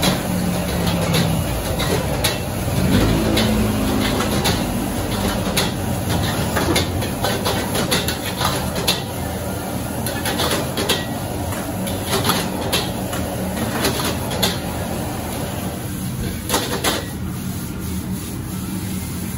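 Fried rice being stir-fried in a wok over a high gas flame: a steady roar of burner and sizzle, with a metal ladle scraping and clanking against the wok again and again.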